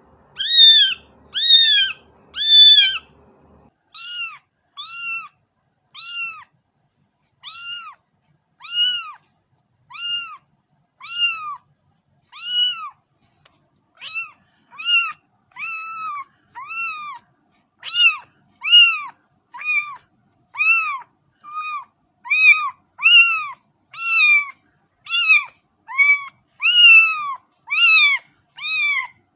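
A cat meowing over and over, short high-pitched meows each rising and falling in pitch, about one a second, with the first three the loudest.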